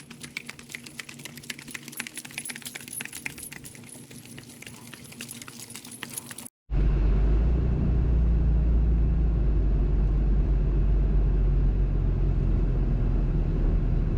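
Harness hardware jingling and clinking with hoof clicks as mules are led off. After an abrupt cut about six and a half seconds in, a vehicle's loud, steady low rumble of engine and road noise while driving.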